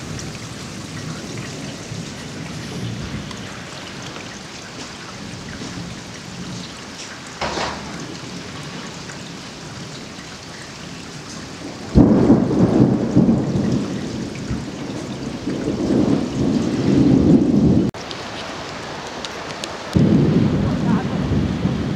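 Strong storm wind buffeting the microphone, loud enough to drown out the waterspout's own roar. A steady rush for the first half turns suddenly into much louder, gusty rumbling about halfway in, drops away briefly near the end, then comes back.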